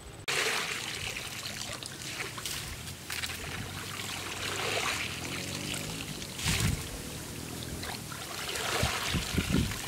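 Water splashing and sloshing as a woven bamboo basket is swept and scooped through shallow muddy water, in repeated swishes every second or two, with water running through the weave.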